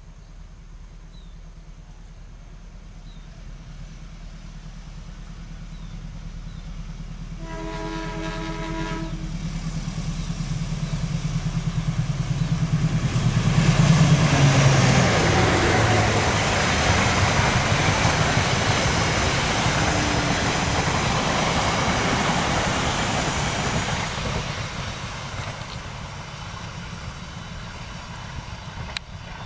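A General Electric diesel-electric locomotive hauling passenger coaches approaches with its engine rumbling louder, working up the grade. About a quarter of the way in it sounds one chord-horn blast of a second and a half or so: the semboyan 35 warning for the level crossing. It then passes close with engine noise and the coaches' wheels on the rails, and the sound fades near the end.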